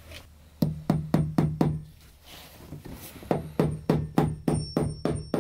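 A hammer tapping wire staples over electrical cable into a wooden ceiling joist: a quick run of about five taps, a pause of over a second, then about ten more taps at roughly four a second, each with a short metallic ring.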